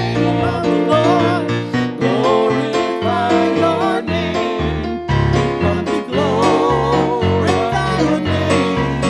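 Worship song sung by a woman and a man together, with an electronic keyboard playing a steady rhythmic accompaniment and bass line.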